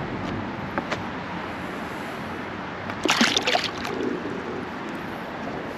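Creek water running steadily, with a few faint clicks about a second in and a brief loud rush of noise about three seconds in.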